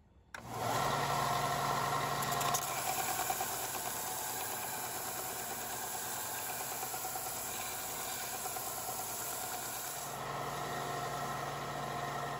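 Bench belt sander running with a steady motor hum while a glued-up blank of stacked oak boards with Corian and brass spacers is pressed flat against the abrasive belt. It starts abruptly, the hum is strongest in the first couple of seconds and again near the end, with even sanding noise in between.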